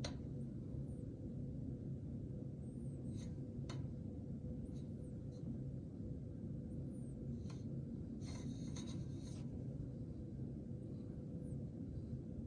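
Old Lennox furnace running with a steady low hum from its blower and inducer motor. A few faint clicks and a short rustle of handling sit over the hum, the loudest about 8 seconds in.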